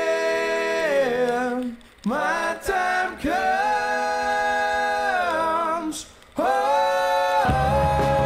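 Soundtrack song: a voice sings long held notes with no accompaniment, in three phrases with short breaks between them, and backing instruments come in near the end.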